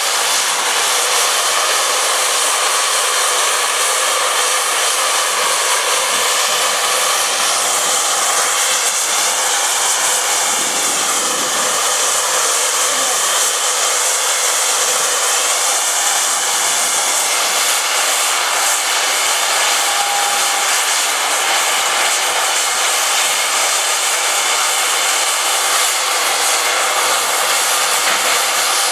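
Steam locomotive blowing off steam: a loud, steady hiss that does not let up.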